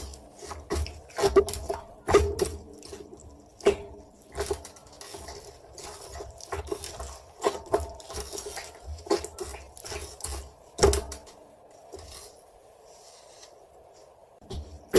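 Slime being squeezed, poked and stretched by hand, giving irregular sharp clicks and pops. The clicks come thick and fast for about eleven seconds, then thin out and go quieter.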